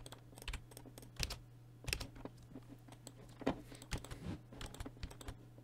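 Irregular clicks of a computer keyboard and mouse being worked, over a faint steady low hum.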